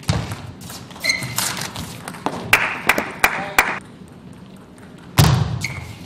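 Table tennis rally: sharp clicks of the ball striking bats and table, four in quick succession midway. Short squeaks of shoes on the court floor and a heavy thud near the end.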